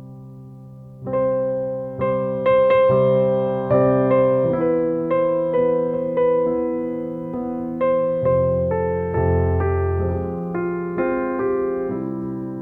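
Slow, gentle piano music: notes and chords struck every half second or so, each dying away, with the playing growing louder about a second in.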